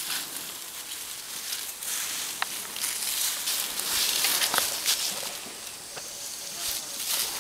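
Dry leaf litter and twigs rustling and crackling under an African elephant's feet as it walks past at close range, with a few small snaps. The rustle swells about halfway through.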